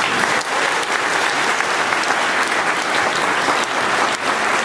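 Audience applauding at the end of a speech, starting suddenly and holding at an even level.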